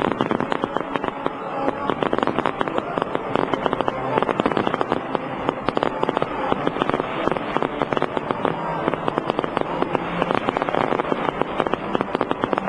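New Year's fireworks display going off continuously: dense, rapid crackling and popping, with crowd voices beneath.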